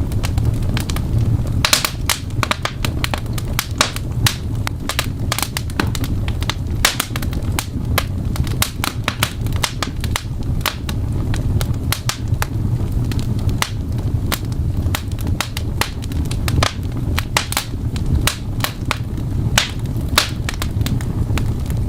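Fireplace fire crackling: many irregular sharp pops over a steady low rumble.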